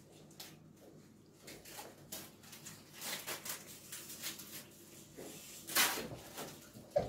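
Faint rustling and crinkling from hands handling a small object, in scattered light scratchy bursts, with a louder rustle near the end.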